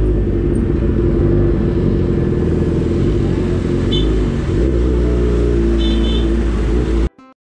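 Motorcycle ride audio: the engine running steadily with road rumble, cutting off suddenly near the end.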